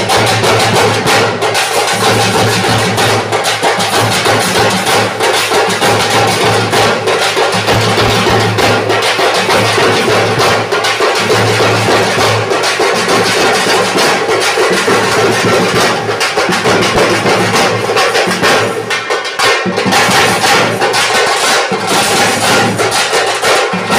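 A folk drum troupe playing hand-held frame drums together with a large barrel drum: a dense, unbroken run of drumbeats.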